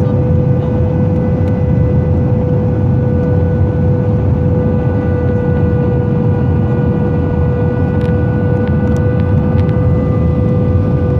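Airbus A320 cabin noise on approach with flaps extended: a loud, steady rush of airflow and engine noise with a steady whine running through it.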